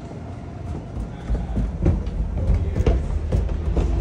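Footsteps going up a wooden staircase in socks, a dull thud for each step at about two steps a second, starting about a second in.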